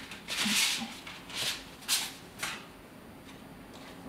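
Paper rustling and sliding as an envelope is opened and a card is drawn out, in about four short swishes.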